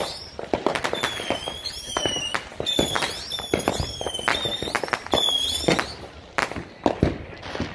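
Fireworks and firecrackers going off in quick, irregular bangs and pops, with a high bending whistle repeating about once a second until near the end.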